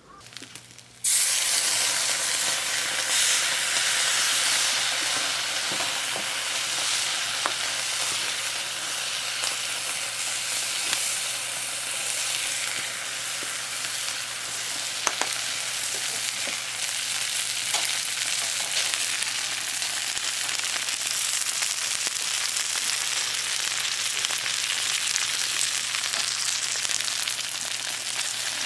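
Steady sizzling hiss with scattered sharp crackles, cutting in abruptly about a second in.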